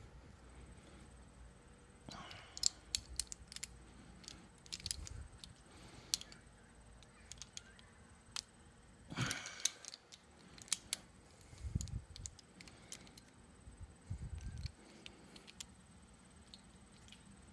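Irregular light metallic clicks and scrapes of Ruger Precision Rifle bolt parts being handled and fitted back together, with a brief rustle about nine seconds in and a couple of dull knocks a few seconds later.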